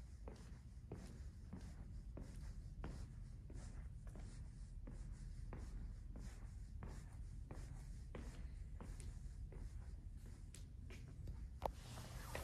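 Footsteps at a steady walking pace, faint regular taps about twice a second over a steady low room rumble, with one sharper click near the end.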